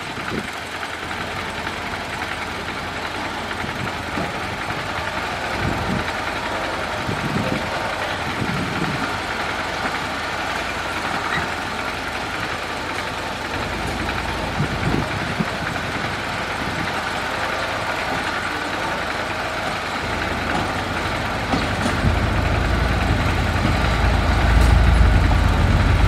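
Dump truck engine running steadily, with a deeper, louder rumble building over the last few seconds.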